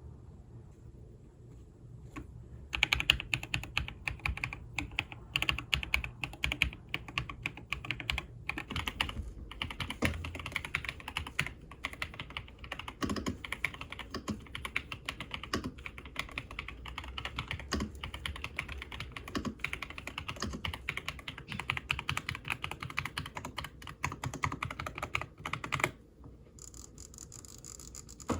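Typing on an RK Royal Kludge S98 full-size mechanical keyboard: fast, continuous keystrokes clacking. The typing starts about two and a half seconds in and stops abruptly a couple of seconds before the end.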